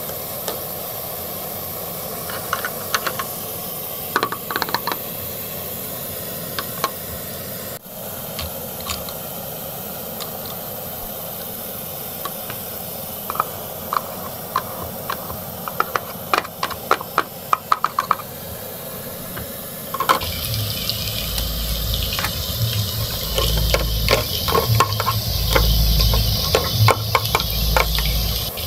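Small plastic clicks and scrapes as a toy spatula and plastic toy food are handled in a toy frying pan, over a steady hiss from a misting toy stove. About two-thirds of the way through, the hiss grows louder and a low throbbing joins it.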